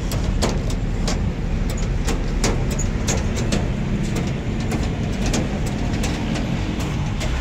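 Steady low rumble of street traffic, with frequent sharp clicks and knocks over it, a few each second.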